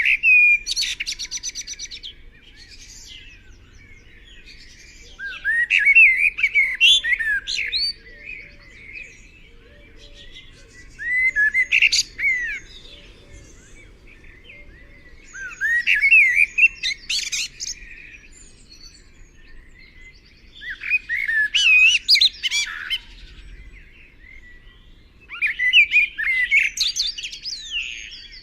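A songbird singing, repeating a phrase of quick chirps and whistles about every five seconds, six phrases in all.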